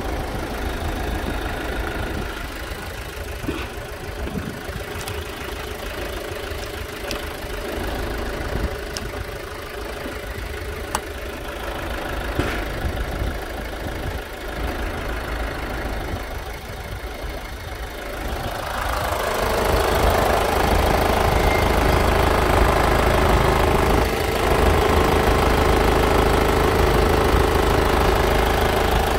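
2010 KIA Sorento's 2.0-litre diesel engine idling steadily. It grows louder about two-thirds of the way in and stays louder.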